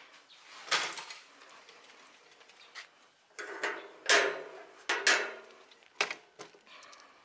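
Sharp metallic clanks and scrapes of a steel gate's sliding barrel bolt being worked by hand, with the gate rattling. There are several separate knocks, the loudest a little after four seconds in.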